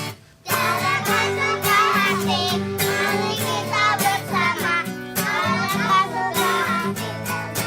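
A group of young children singing a song together over instrumental backing, with a short break just after the start.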